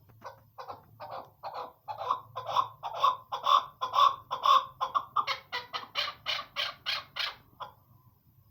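Chukar partridge calling: a long run of rapid, repeated clucking notes, about three to four a second, building in loudness. The later notes are sharper and higher before the series stops near the end.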